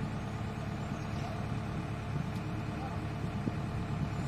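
Diesel engine idling steadily.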